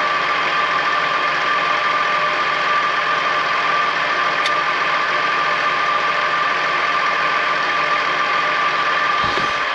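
Tractor engine running steadily, with a steady high-pitched whine over the engine noise.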